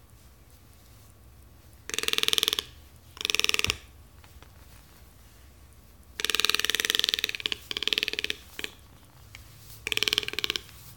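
Toco toucan giving a series of rapid, rattling croaks in separate bursts of about half a second to a second each, five or six over the stretch.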